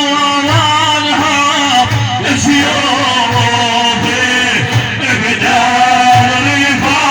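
Middle Eastern religious praise song (madih): a male voice singing a melodic line over a steady drum beat.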